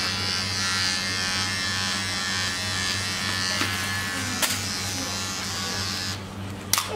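Electric hair clipper running with a steady buzz. Its higher hiss drops away a little after six seconds in, and a sharp click follows near the end.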